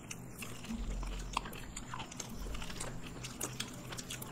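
Close-miked eating of soft Indian sweets: quiet biting and chewing, with many small wet mouth clicks and smacks.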